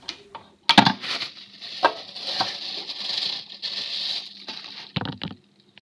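Kitchen handling at a stainless steel pot. There is a sharp knock about a second in and a couple of clicks, then a steady hiss for about two seconds, and a few more knocks near the end.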